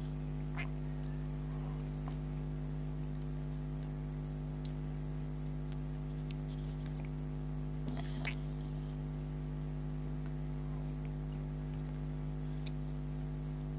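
Steady electrical hum with a few scattered faint wet clicks from the mouth, chewing soft syrup-soaked Indian sweets.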